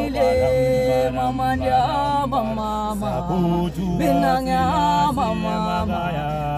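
Voices singing a gwijo, a Zulu a cappella chant song, in a steady run of sliding, held notes over a low sustained hum.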